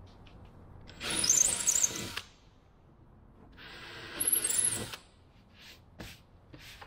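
A power drill run in two short bursts of about a second each, followed by a few light clicks.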